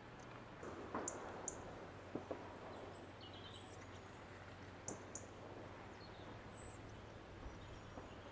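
Quiet ambience: a steady low hum, a few light ticks and faint bird chirps.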